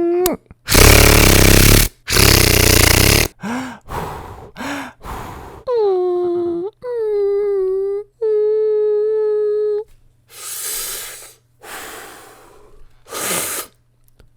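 A person making vocal sound effects close to the microphone: two loud breathy blasts, a few short sounds, then three held whining hums, then more breathy bursts near the end.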